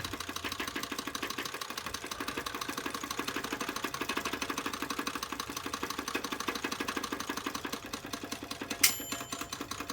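Olympia manual typewriter's space bar pressed over and over, the carriage stepping along with rapid, even clicks. About nine seconds in, the margin bell dings once, signalling that the carriage has reached the end of the line.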